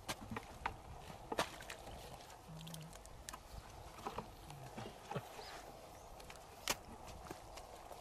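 Irregular sharp knocks and scrapes of a hand hoe and a wooden digging stick striking hard, cracked dry mud, about a dozen strokes, with one louder knock about a second and a half in and another near the end.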